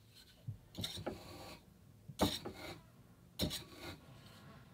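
Hand-held wool comb swept again and again through fine fiber on a clamped stationary comb, its metal tines raking and rasping through the wool in several short strokes about a second apart during a combing pass.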